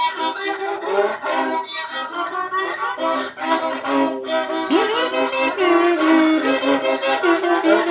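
Psychobilly-style fiddle tune played with quick, short bow strokes, with a note sliding up in pitch about five seconds in.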